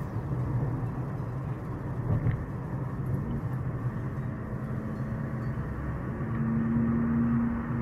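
Car engine and tyre noise heard from inside the cabin while driving: a steady low hum, with the engine note growing louder about six seconds in.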